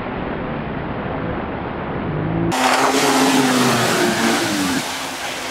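Snowmobile engine running hard as the machine skims across open water. About two and a half seconds in the sound cuts to a louder, clearer engine note that slowly falls in pitch before easing off near the end.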